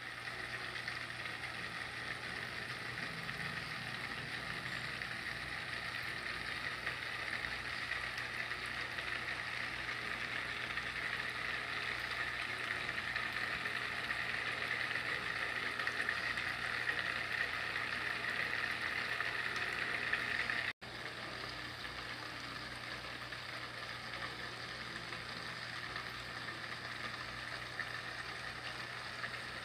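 Water trickling and splashing steadily from a small pump's outlet pipe into a miniature pond, over a low steady pump hum. The sound cuts out for an instant about two-thirds of the way through.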